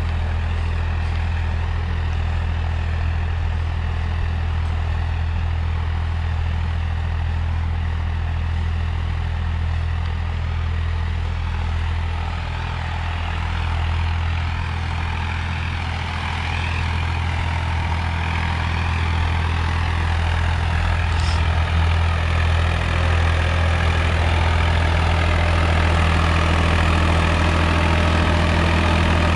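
Swaraj 855 XM tractor's three-cylinder diesel engine running steadily under load while it pulls a disc harrow. It grows louder in the last third as the tractor comes near.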